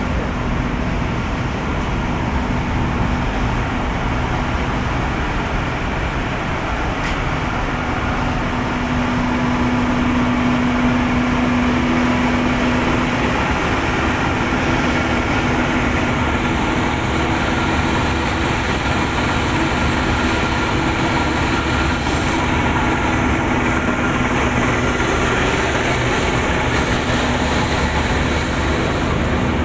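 Tea-processing machinery running with a loud, steady mechanical din and a constant low hum.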